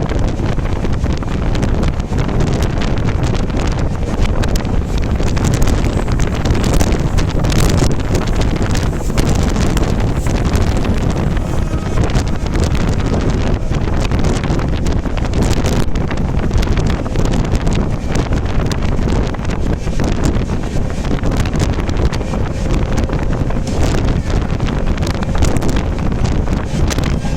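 Passenger train running at speed, a steady loud roar with strong wind buffeting the microphone.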